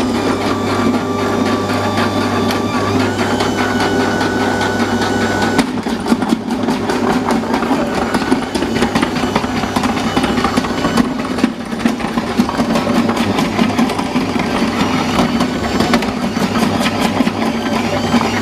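Bosch MUM 5 kitchen machine's motor running with the dicing attachment fitted, a steady hum and whine that steps up in pitch about three seconds in. From about six seconds in, potatoes being pushed through the dicer add a fast, dense clatter of cutting.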